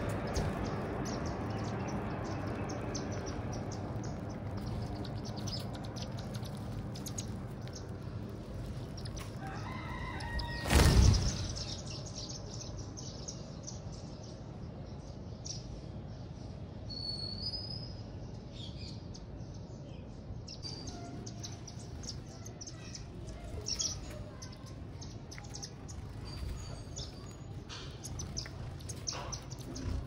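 Silverbills chirping: many short, high, thin calls scattered throughout, over a steady low background hum. One loud, brief thump or flutter about eleven seconds in.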